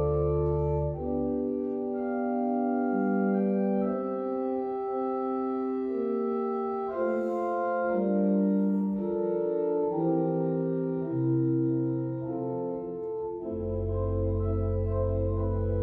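Church organ played in slow, sustained chords that change about every second. Deep bass notes drop out a second or two in and come back strongly near the end.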